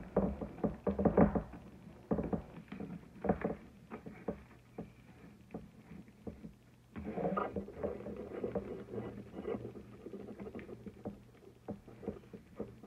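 Fabric ribbon rustling and being pulled as a bow is tied and adjusted by hand, with irregular taps and knocks. The handling is busiest at the start and again from about seven seconds in.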